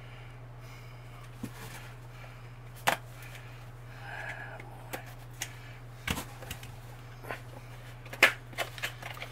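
Cardboard box being opened with a yellow box cutter: the blade slitting the packing tape, then the flaps handled, with several sharp clicks and knocks, the loudest near the end. A steady low hum runs underneath.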